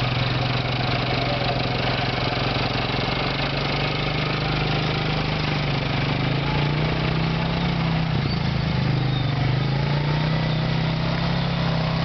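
ATV engine running at low speed while towing a log on a fetching arch; the engine note steps up about six seconds in, wavers briefly near eight seconds, then holds at the higher pitch.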